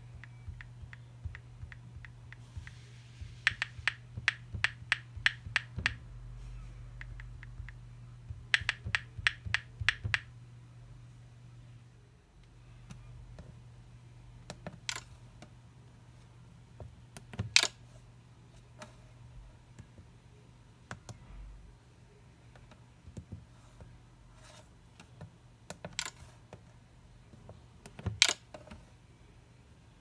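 iPhone on-screen keyboard key clicks, about six a second, in two quick runs as letters are tapped. Later come a few single, sharper clicks, the phones' screen-lock click, over a steady low hum.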